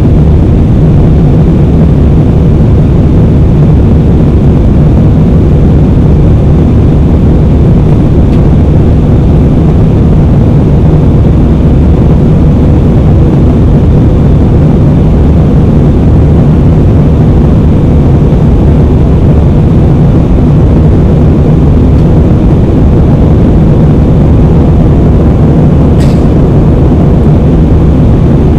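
Airbus A320 in flight heard from inside the cabin by the window: a loud, steady rumble of jet engines and rushing air, heaviest in the low end, with one brief faint click a couple of seconds before the end.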